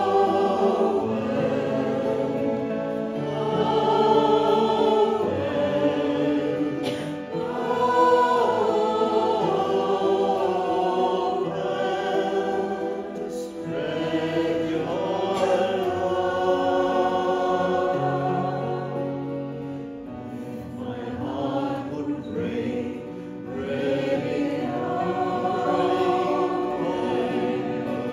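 A woman and a man singing a slow devotional song together, accompanied by a hand-pumped harmonium and an acoustic guitar.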